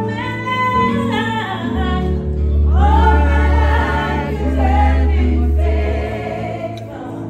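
Music with a choir singing. A deep bass comes in about two seconds in and drops out about a second before the end.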